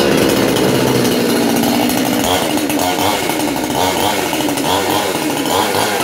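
A new two-stroke gasoline chainsaw engine catches on the pull and runs, its speed rising and falling from about two seconds in as the throttle is worked.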